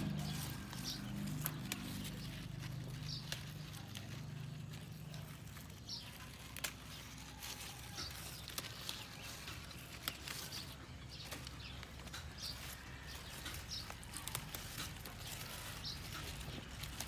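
Leaves of red leaf lettuce rustling and snapping off as they are picked by hand, with scattered sharp clicks. A bird gives a short, high chirp every few seconds.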